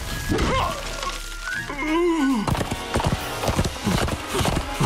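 Cartoon soundtrack: background music with a creature's cry rising and falling about two seconds in, then quick hoofbeats from a galloping horse-like creature through the second half.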